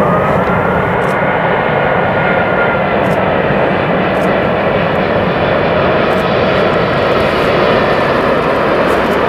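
Airbus A380's four Rolls-Royce Trent turbofans running loud and steady as the airliner flies low on approach with its gear down. A high fan whine rises slightly over the first few seconds, then fades into the jet noise.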